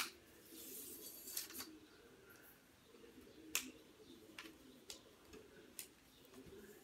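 Faint, scattered clicks and light knocks from a tripod's legs and plastic flip leg locks being handled as the tripod is unfolded, with a short rustle near the start.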